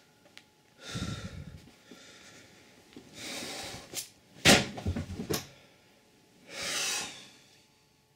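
A person breathing hard in separate breaths about a second long, with a cluster of sharp knocks and rustling about halfway through as the handheld camera is jostled; the first knock is the loudest.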